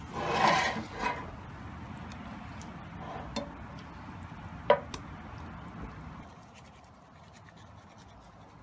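Plastic spatula stirring and scraping seasoned fish pieces around a nonstick frying pan, loudest in the first second, followed by a few sharp taps of the spatula on the pan, one of them ringing. Low steady noise fades out about six seconds in.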